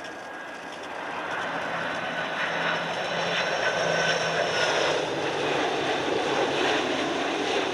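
Jet engines of a McDonnell Douglas MD-11 trijet freighter on final approach, a steady roar with a high whine that grows louder over the first few seconds as the plane nears.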